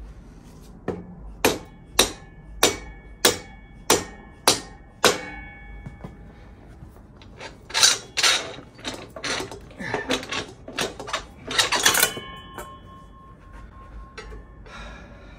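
Hammer blows on the steel front axle of a Harley-Davidson Softail, knocking it out of the front wheel hub. About seven sharp, ringing strikes come roughly 0.6 s apart. A quicker, irregular run of knocks and metal clatter follows, ending in a strike that leaves a ringing metal tone.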